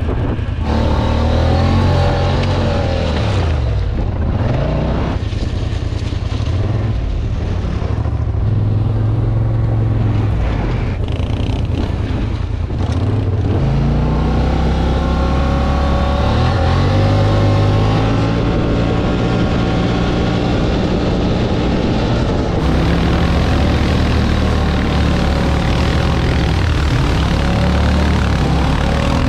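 Off-road vehicle engine running under load, its pitch rising and falling again and again as the throttle is opened and eased.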